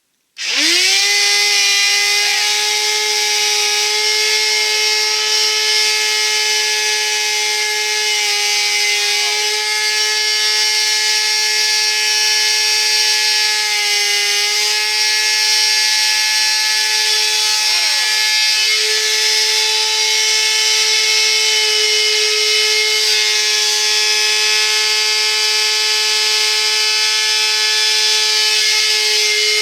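Vacuum cleaner motor switched on about half a second in, spinning up within a second to a loud, steady high whine that keeps running. It is being test-run after it began making an unusually loud noise.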